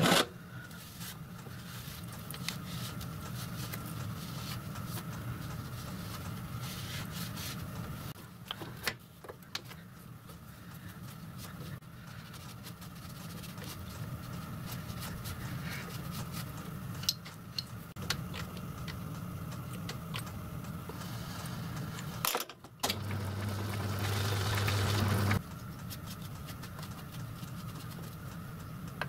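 Metal tools and parts clinking and knocking as a small piston is set in a lathe's three-jaw chuck with the chuck key and a tool holder is handled, over a steady low hum. The hum grows louder for about two seconds near the end.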